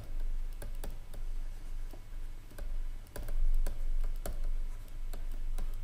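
Pen stylus tapping and clicking on a tablet screen during handwriting: a series of irregularly spaced sharp clicks over a low steady hum.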